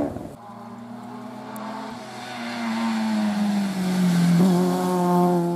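Rally car engine approaching on a tarmac stage, held at a steady high note that eases slightly lower in pitch as it gets louder.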